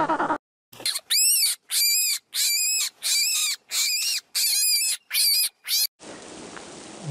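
A rabbit's high-pitched squeaks, about eight in a row at roughly three every two seconds, each rising and then falling in pitch. Just before them, an African penguin's braying call cuts off.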